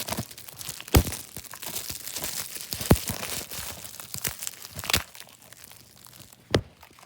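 Plastic DVD case and its wrapping being handled: continuous crinkling and tearing, with four sharp plastic clicks and snaps.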